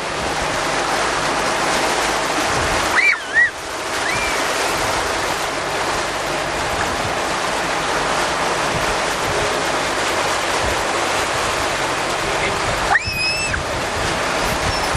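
Steady rush of wind and water from a motorboat under way, with a low steady engine hum underneath. Two brief high-pitched sounds break through, about three seconds in and near the end.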